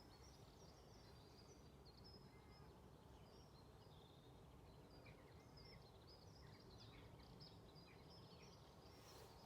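Faint birdsong at dawn: many short, high chirps and trills from several small songbirds, over a low steady hiss.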